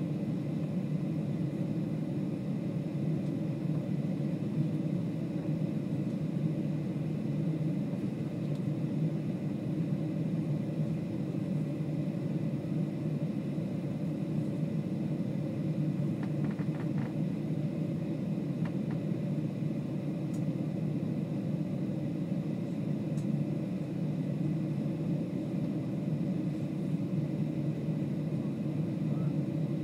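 Steady low rumble of engine and air noise heard inside the cabin of a Boeing 737-800 on the ground, its CFM56 engines at low thrust; a few faint clicks about halfway through.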